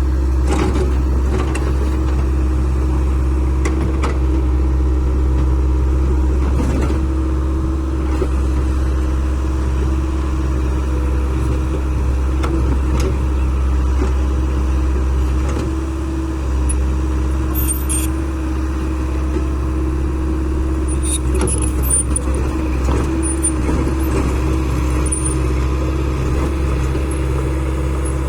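Heavy diesel machine engine running steadily under load, with a few sharp knocks in the first several seconds and brief high squeaks in the second half.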